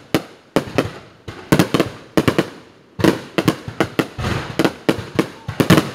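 Fireworks display: bangs in quick succession, several a second, each with a trailing echo. About three seconds in the bangs come thicker, with a crackling haze between them.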